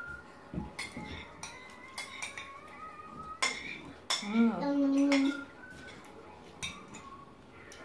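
Metal spoons clinking and scraping against ceramic soup bowls, a sharp clink every second or so, some ringing briefly. A short voice sound about four seconds in is the loudest moment.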